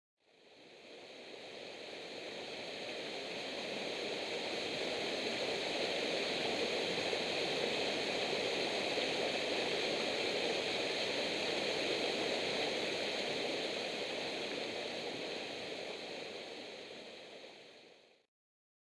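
Mountain torrent rushing over boulders and down a small waterfall. The steady rush fades in over the first few seconds and fades out near the end.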